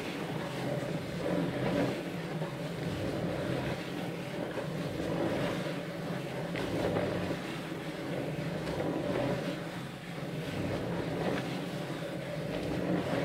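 Wooden drawing machine running, its turntables and pen linkage arm turning with a steady, even mechanical hum.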